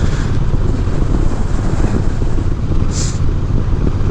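Honda Rebel 1100 DCT's parallel-twin engine running steadily while riding at low speed, with wind and road noise rushing past; a short hiss about three seconds in.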